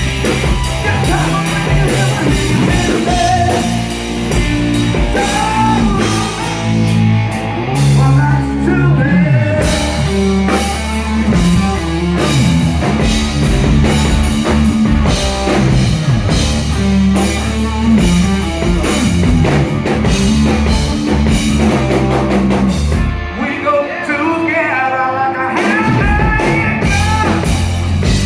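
Rock band playing live: distorted electric guitar, bass and drums with male lead vocals. About three quarters of the way through, the bass and drums drop out for a couple of seconds, leaving the guitar, before the full band comes back in.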